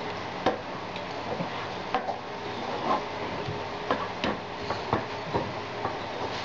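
Wooden spatula stirring thick gravy in a frying pan, scraping and knocking against the pan in irregular taps about once or twice a second, over a steady low hum.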